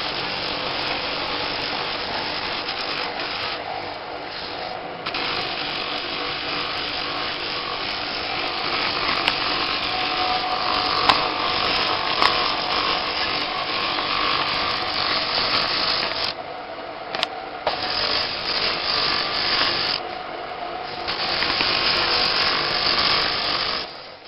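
A power tool grinding or polishing stone, a steady rasping noise over the motor's faint hum. It eases off briefly three times as it comes away from the work.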